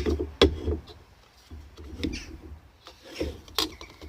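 Metal stove parts of a Swiss Army Volcano stove being handled and packed together: several sharp knocks with rubbing and scraping between them.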